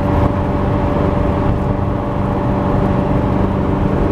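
Subaru WRX cruising at steady highway speed, heard from inside the cabin: an even engine drone with tyre and road noise, and a constant hum over it.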